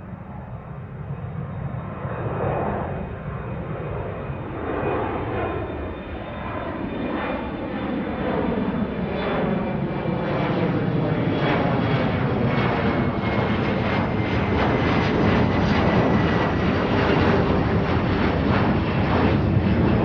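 Airplane approaching, its engine noise growing steadily louder, with a faint high whine above the rumble.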